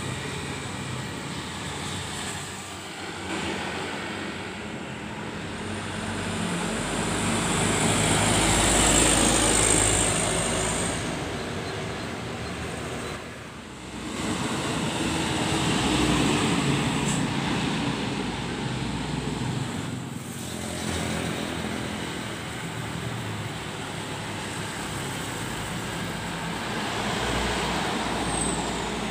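Road traffic passing at night: cars and trucks drive by one after another, the engines and tyres swelling and fading with each pass. The loudest pass comes about nine seconds in, with more around sixteen seconds and near the end.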